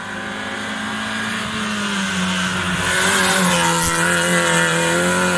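Race car's engine running at high revs as the car approaches and passes, getting louder to a peak about three seconds in. The pitch drops once about three and a half seconds in.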